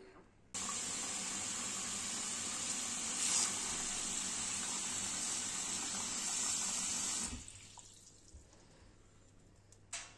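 Kitchen tap running a steady stream of water into a stainless steel stockpot of meat and vegetables, filling it for broth. The water comes on about half a second in and is shut off around seven seconds in.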